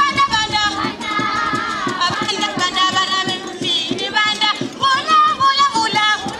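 Song music with singing over a steady beat.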